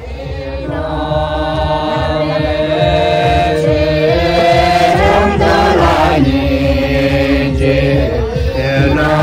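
A group of men and women chanting in unison in long, held notes that step up and down in pitch, with a rising glide to a higher note about halfway through.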